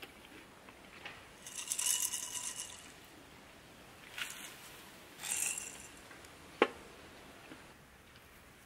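Short scrapes and clinks of chopsticks and utensils against metal cookware and the wire grill, with one sharp click late on.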